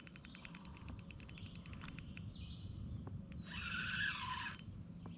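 Fishing reel clicking rapidly and evenly as line is reeled in on a hooked fish, fading out about two seconds in. A few scattered clicks and a brief burst of noise follow a little past the halfway point.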